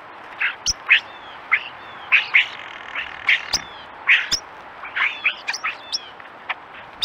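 A flock of European starlings calling while they feed: a busy run of short calls, about three a second, with brief whistles that slide down in pitch and a few sharp clicks among them.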